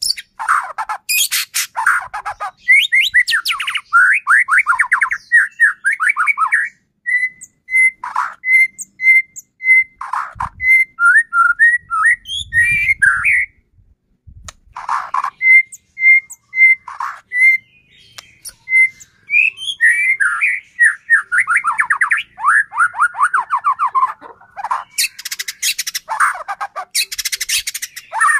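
White-rumped shama (murai batu) singing in full song: rapid strings of sweeping notes, runs of short clear whistles on one pitch about two a second, and harsh rasping bursts (kretekan) near the start and near the end.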